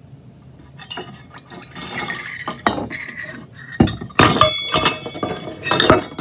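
Water being poured from a measuring cup into a container, followed in the second half by a run of sharp clinks and knocks as the cup and container are handled.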